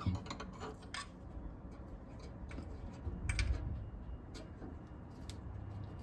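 A few light, separate metallic clicks and clinks of a steel spanner being fitted to and turned on the clutch pedal adjuster under a Morris Minor.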